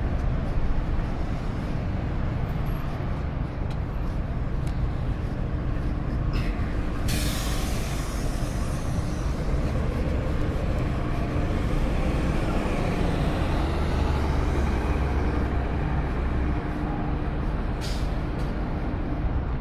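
A large vehicle's engine running steadily with a low rumble. Compressed air hisses out, as from air brakes, about a third of the way in and fades over a few seconds, with a shorter hiss near the end.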